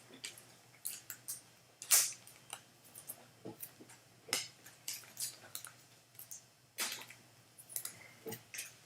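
Scattered crinkling and clicking as a foil trading-card pack is torn open and the cards inside are handled. There are two sharper crinkles, about two seconds in and near seven seconds in.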